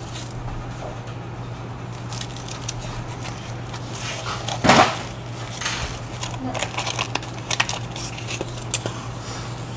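Kitchen handling sounds: light clicks and knocks of utensils and packaging on the counter over a steady low hum, with one louder short sound about five seconds in.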